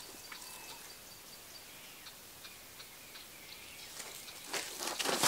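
Quiet bush with a few faint bird chirps and light ticks, then a rush of noise that swells near the end and becomes loud.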